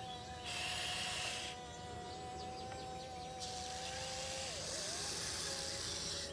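Huina 1580 electric RC excavator's small motors whining steadily while digging, the pitch dipping briefly near the middle. Twice the whine is joined by a stretch of scratchy hiss from the bucket scraping through dirt.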